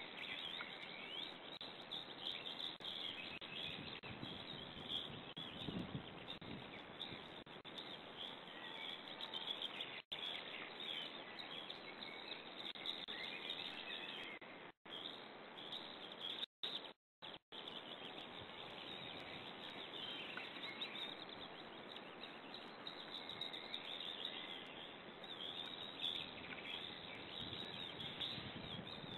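Many short bird chirps over a faint, steady outdoor hiss on a nest-camera microphone. The sound cuts out completely several times for a split second, around the middle.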